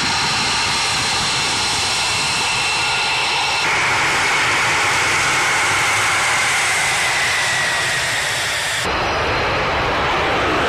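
Jet engine noise from an F-22 Raptor's twin Pratt & Whitney F119 turbofans: a steady high whine while taxiing, then a whine slowly falling in pitch. In the last couple of seconds it gives way to a louder, broad rush of jet noise as the jet takes off.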